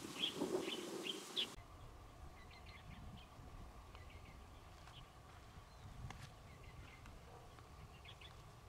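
Small birds chirping in short calls over a low steady rumble. The background changes abruptly about a second and a half in, and after that the chirps are fainter and scattered.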